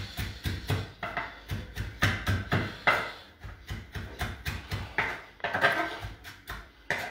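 Chef's knife chopping herbs on a wooden cutting board, a steady run of knocks at about three to four chops a second.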